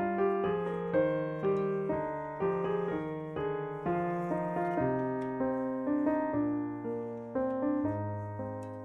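Background piano music: notes struck about twice a second, each fading away, over lower sustained notes.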